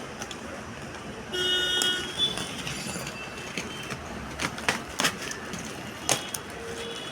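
A horn toots once, briefly, about a second in. A few sharp knocks and taps follow near the middle and later, from handling.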